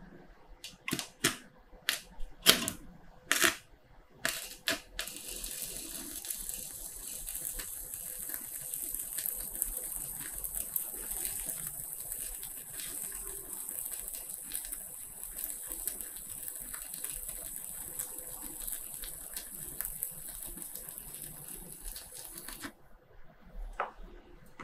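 Stick-welding arc from a HUKAN HK 200 mini inverter welder on thick steel: a few sharp snaps in the first few seconds as the electrode is struck, then a steady hissing crackle of the burning arc for about seventeen seconds. The arc cuts off suddenly a couple of seconds before the end.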